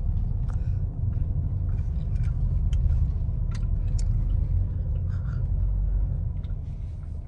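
Low, steady rumble of a car heard from inside the cabin as it drives along a concrete track, with a few faint clicks and knocks.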